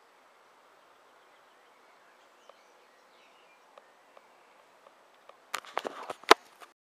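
Faint birds chirping over a quiet outdoor background, with a few soft ticks. Near the end comes a quick run of loud, sharp clicks and knocks lasting about a second.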